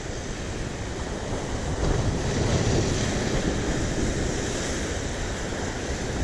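Sea surf washing on a rocky shore, a steady rush with wind noise on the microphone, swelling slightly about two seconds in.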